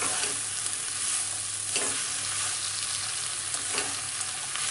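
Chopped mixed vegetables (cabbage, carrot, capsicum, peas) sizzling in a nonstick kadai as a plastic spatula stirs and tosses them, with a few short scrapes of the spatula against the pan.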